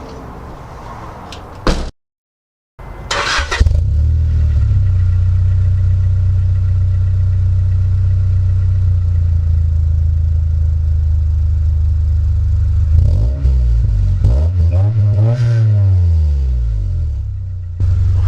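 A brief scraping noise, then a cut to silence. After that a Honda Accord's engine starts and idles steadily, and is revved up and back down a couple of times near the end.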